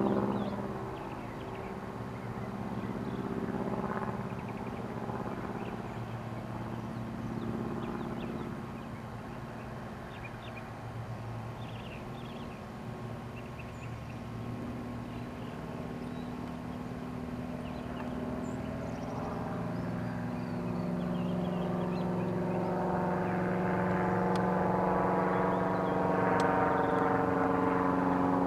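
Pietenpol Air Camper's freshly rebuilt engine and propeller droning steadily in flight. The drone fades somewhat in the middle and grows louder over the last third as the plane comes overhead.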